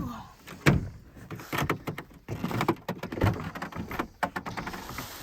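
Things being handled and moved around: an irregular run of knocks and clunks with rustling between them.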